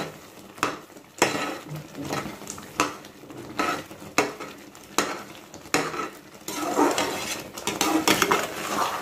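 A ladle knocking and scraping against an aluminium kadai as semolina (rava) is stirred while it cooks in pineapple juice and water. There is a sharp knock roughly every half to one second, and the scraping gets busier about two-thirds of the way through.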